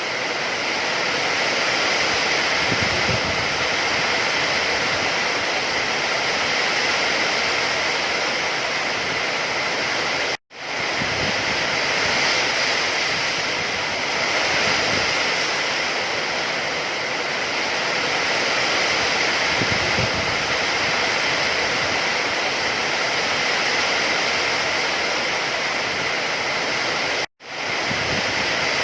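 Steady rain falling, an even hiss with no separate drops standing out. It cuts out to silence for a split second twice, about 10 and 27 seconds in, then comes straight back.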